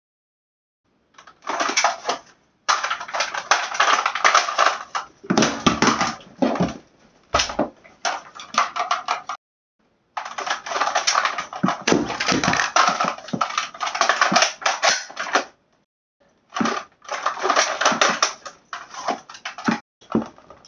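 Airsoft rifle being handled: dense runs of clicking, rattling and knocking from its plastic and metal parts, in several stretches broken by sudden silences.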